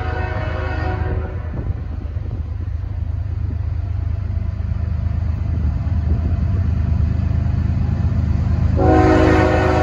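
Diesel freight locomotive's multi-chime air horn blowing for a road crossing as the train approaches: one blast ends about a second and a half in, and after a long gap the next starts near the end. Under it a low rumble grows steadily louder as the train nears.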